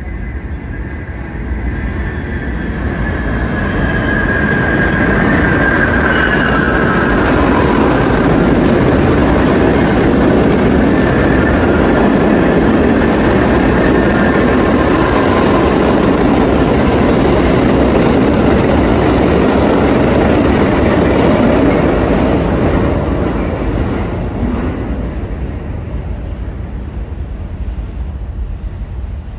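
New York City subway train passing through a station at speed: a loud rumble and clatter of wheels on rails that builds, holds for about twenty seconds and then fades away. Wheels squeal high-pitched for a few seconds near the start.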